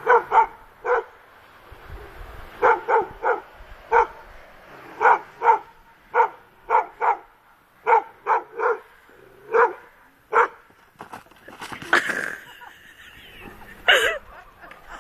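A dog barking repeatedly, short sharp barks that come singly and in quick runs of two or three throughout.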